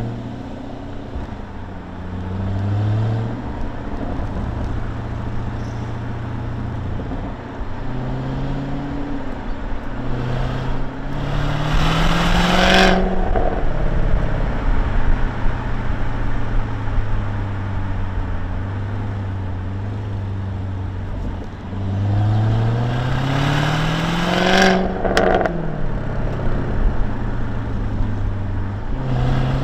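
The 2020 Jaguar F-Type R's supercharged V8 exhaust, heard from the open cockpit with the roof down. There are two hard accelerations, about a third of the way in and again past the middle, each a steadily climbing pitch that drops away at the upshift. Between them the engine cruises at a steady lower note.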